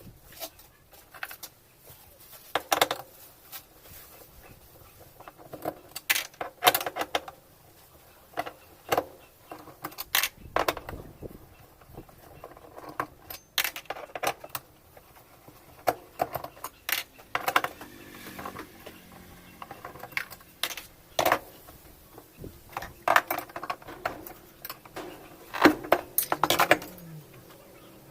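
Irregular metallic clicks, clinks and knocks of hand tools and loose metal parts being handled while a washing machine's mechanism is taken apart.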